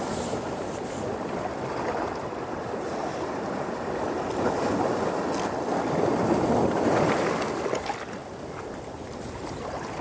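Sea waves washing onto a sandy beach: a surge builds about halfway through, peaks, then falls away near the end.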